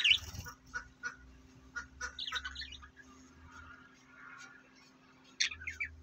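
Budgerigars chirping in short bursts: a sharp chirp at the start, a quick chattering run about two seconds in, and another near the end, with faint clicks between.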